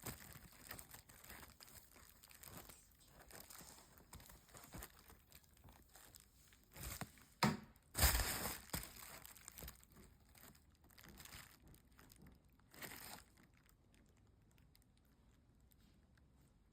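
Parcel packaging crinkling and tearing as it is opened by hand, with a few louder rips about halfway through and one more later, then it goes quiet.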